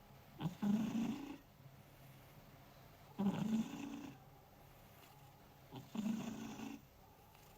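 Domestic cat snoring: three snores about two and a half seconds apart, each lasting about a second.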